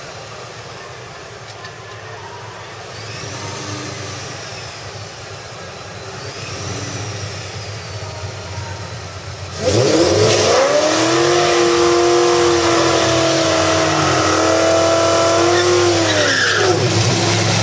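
Ford Mustang drag car idling, then about ten seconds in its engine is revved hard and held high for roughly six seconds while the rear tyres spin and squeal in a burnout. The revs fall away near the end.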